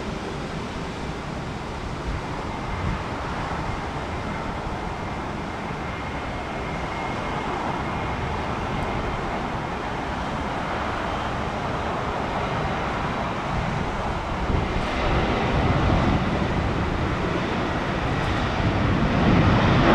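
Jet airliner engines running with a steady rushing noise and a faint high whine, growing louder over the last few seconds as the aircraft draws nearer.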